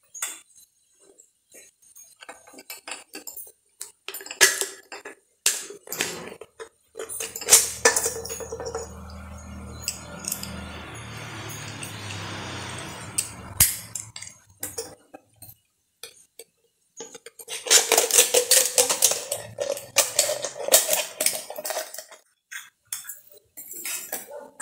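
Thin aluminium drink cans being handled and cut: light metallic clinks, taps and crinkling scrapes, busiest a few seconds before the end. A steady low rumble runs for several seconds midway.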